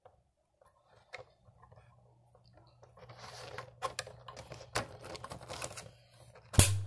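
A plastic mount is worked into the slot on the back of a corded telephone's dialpad base: scattered small clicks and plastic scraping, then one sharp click near the end as it seats.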